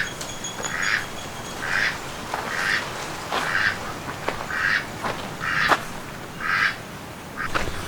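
Domestic duck quacking repeatedly, about one quack a second, in a regular series of roughly seven calls.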